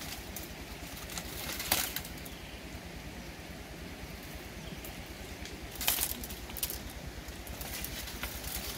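Brief rustles of leaves and branches in brush, sharpest about two seconds in and again about six seconds in, over a steady low outdoor background.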